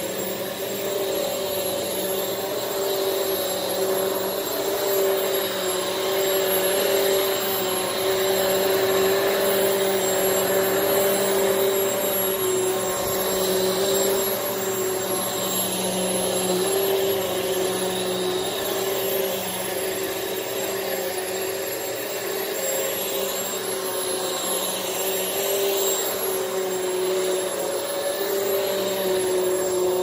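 Hoover PowerDrive Swivel XL (UH75110) upright vacuum running steadily, its motor giving a steady whine. A slight squeal from the stretch belt driving the brushroll can be heard, which the owner takes as a sign that the belt is starting to stretch on a fairly new machine.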